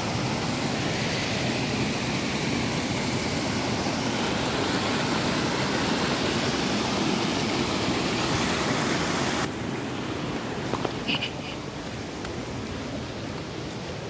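Stream water rushing over rocks, a steady full hiss. About nine and a half seconds in it cuts off abruptly to a quieter, duller hiss, with two brief high chirps soon after.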